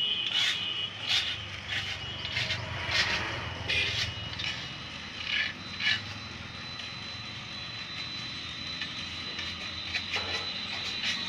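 Workshop work on a gearbox: irregular clicks, knocks and scrapes of tools and parts, most of them in the first six seconds and a few more near the end, over a steady high-pitched tone and a low hum.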